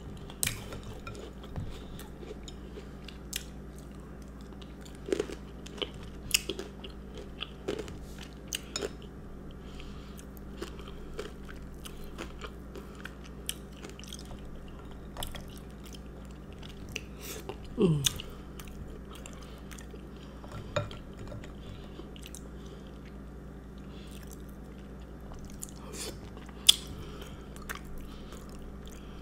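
Close-miked eating of a chocolate chip cookie with iced milk: chewing with scattered sharp crunches and clicks, over a steady low hum. One short falling tone sounds just past the middle.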